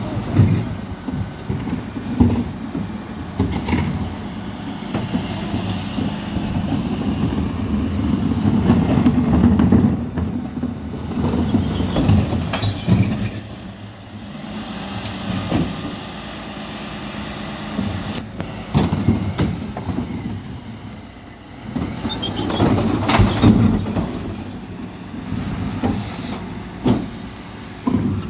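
Mercedes-Benz Econic bin lorry with a Terberg Olympus body running, with repeated knocks and clunks from its bin lift and body as recycling bins are handled.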